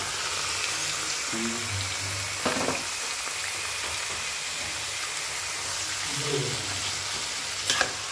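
Marinated chicken sizzling in hot oil and fried onions in a kadai: a steady frying hiss as the raw chicken hits the oil. A metal slotted spatula clicks against the pan twice, about two and a half seconds in and near the end.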